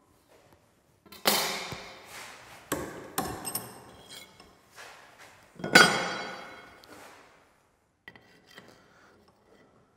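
Metal clanks and knocks with a ringing decay as a steel angle profile is handled in and lifted out of a bench vise. There are several sharp hits in the first few seconds, the loudest about six seconds in ringing on for over a second, then a few light clinks.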